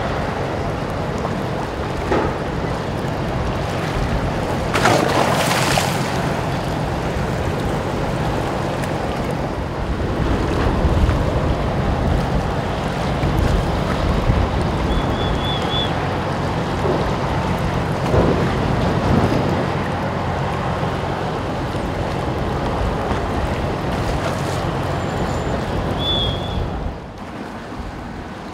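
Steady low hum of a docked car ferry's engines under wind buffeting the microphone and the sound of waves at the quay, with a short rush of noise about five seconds in.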